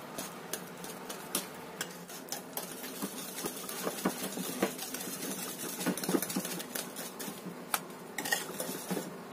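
Small wire hand whisk stirring shredded coconut into a thick, creamy batter, its metal wires tapping and scraping against the bowl in quick, irregular clicks.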